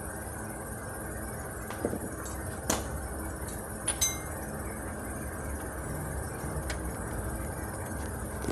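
Four light, sharp metallic clinks of metal tools or engine parts being handled during timing-belt removal, between about two and four seconds in, the last one ringing briefly, over a steady low background noise.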